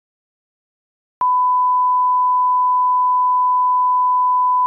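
Dead silence, then about a second in a brief click and a steady single-pitch test tone that holds unchanged: the line-up tone that goes with colour bars at the end of a tape.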